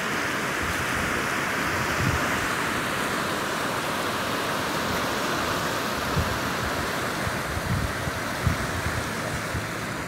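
Steady rushing of the fast-flowing Danube, running high and churning past the bridge piers, with a few low buffets of wind on the microphone.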